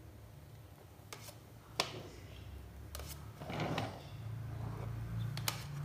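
A flat scraper working cream along the sides of a layered cake on a wooden board: a few light clicks of the scraper against the board and short soft scrapes, over a low steady hum.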